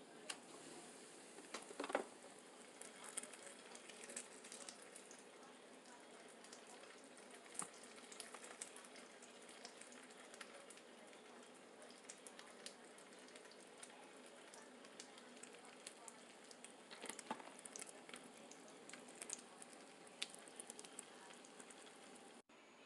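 Faint eating sounds: chewing with many small wet mouth clicks and crackles, and a few louder clusters.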